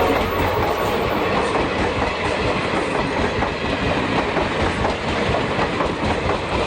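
A train running along the track: a steady rolling noise with fast, continuous rattling from the wheels and cars.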